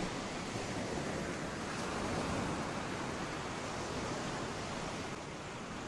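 Sea waves ambience: a steady rushing wash of water with no distinct breaks.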